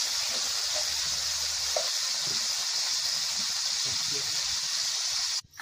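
Bacon-wrapped burger patties and mushrooms sizzling steadily in a hot pan. The sizzle cuts off abruptly near the end.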